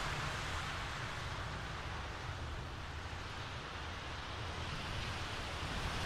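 City traffic on a wet, slushy, snowy street: tyres hissing through slush and water over a low traffic rumble. The hiss fades to a lull in the middle and swells again near the end as more traffic comes closer.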